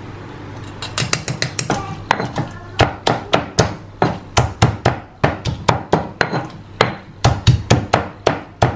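Granite pestle pounding dried shrimp in a granite mortar: rapid, uneven stone-on-stone knocks, several a second, starting about a second in.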